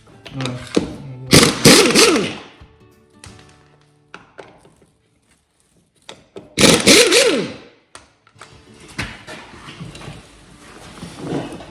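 Two bursts of a power tool, about five seconds apart, its motor pitch rising and falling within each run. This is the tool taking a wheel off a Permagreen spreader-sprayer, with quieter knocks in between.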